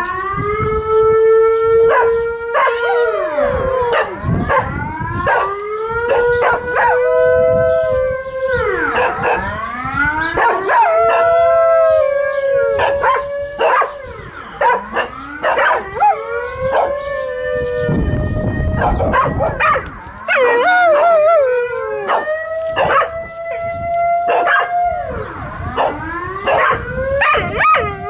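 Cocker spaniel howling over and over, drawn-out howls of a couple of seconds each that rise slowly in pitch and slide away at the ends, with short sharp clicks in between.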